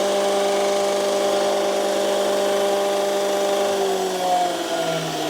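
Boyar Schultz No. 2 profile grinder's electric spindle drive running under power, a steady motor hum and whine. About four seconds in, its pitch drops and shifts.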